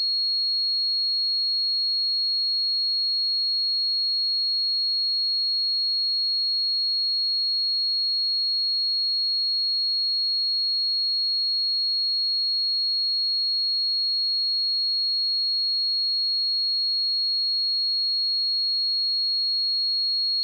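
A pure 4303 Hz sine-wave test tone, one steady high-pitched pitch held at constant loudness.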